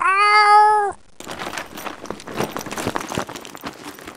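A cat meowing once, a long steady meow that ends about a second in. It is followed by a dense crackling, rustling noise that cuts off suddenly near the end.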